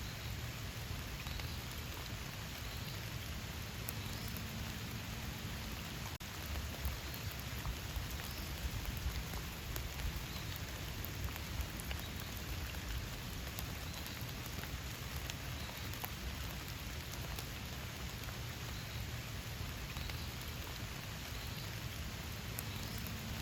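Steady rain falling in a forest: an even hiss, with many single drops tapping close by.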